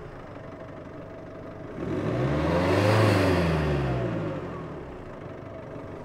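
Car engine revving: it runs low and steady for the first couple of seconds, then swells as the pitch climbs to a peak about three seconds in and falls back as it eases off.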